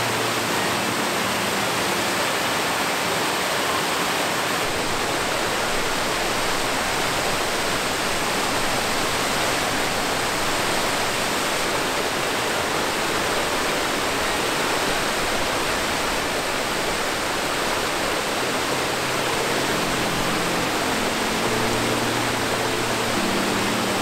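Steady rush of a cascading waterfall, water pouring and splashing over rocks into a stream.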